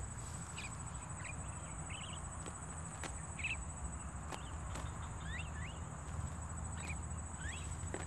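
A steady, high insect whine runs under scattered short bird chirps, some sweeping upward in pitch, with a few light clicks.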